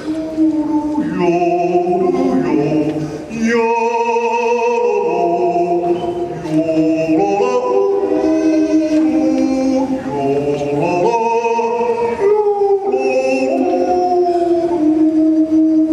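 A man yodelling Swiss-style into a microphone, holding notes and leaping back and forth between low and high pitches, some notes wavering.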